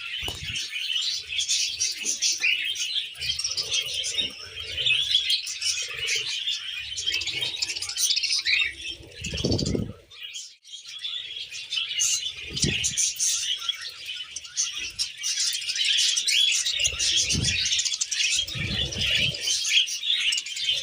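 Pet budgies and cockatiels chirping and warbling in a continuous dense chatter, dropping out briefly about ten seconds in. A few short low thumps sound through it.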